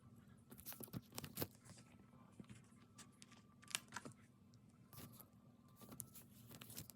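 Faint, intermittent rustling and crinkling of paper and plastic craft materials being handled, with louder crinkles about a second in and again near four seconds.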